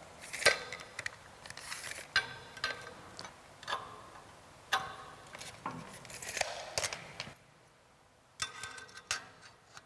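Scattered light metal clicks and short scrapes of a tape measure, steel square and scriber being handled on a steel workpiece as a cutting line is measured and marked out. The sounds come irregularly, with a brief pause a little before the end.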